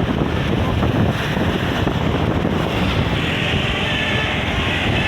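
Wind buffeting the microphone over a steady low rumble of vehicle noise.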